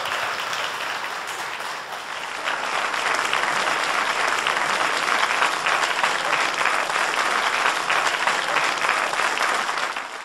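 Audience applauding. The clapping gets louder about two and a half seconds in and fades out at the very end.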